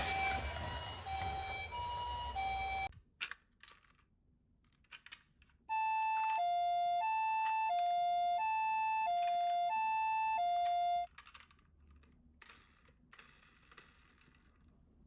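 Toy ambulance's electronic two-tone siren, a high and a low note alternating. In the first three seconds a faster two-tone siren plays over a noisy rush, then cuts off, leaving a few clicks. From about six to eleven seconds in, a clean hi-lo siren sounds, each note held about 0.7 s, followed by faint clicks and rustling.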